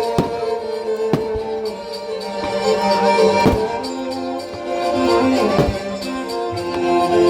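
Loud music with a held melody, cut through by sharp bangs every second or two.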